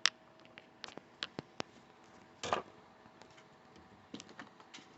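Plastic Lego pieces clicking and knocking as they are handled and set down: scattered sharp clicks, the loudest right at the start, a short rattle about halfway through, and a few more clicks near the end.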